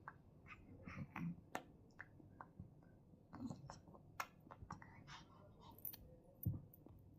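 Soft baby mouth noises: scattered small clicks and smacking sounds, with a couple of faint brief vocal sounds between bouts of babbling.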